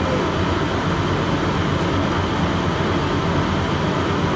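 The boat's engine drones steadily and without a break, mixed with an even rushing noise.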